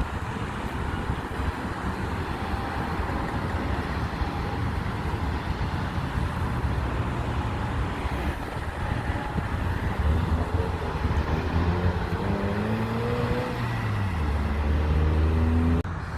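A vehicle passing by: a steady engine rumble, then a droning tone that falls in pitch as it goes past. The sound cuts off abruptly near the end.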